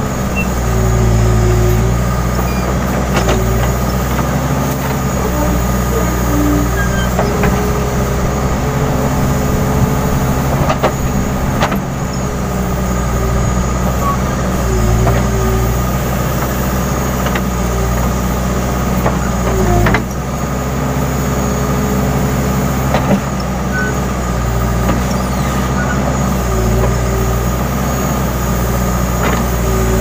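Case N Series backhoe loader's diesel engine running under load while the backhoe digs, the engine note swelling and easing every few seconds as the arm works. A few sharp clunks sound along the way.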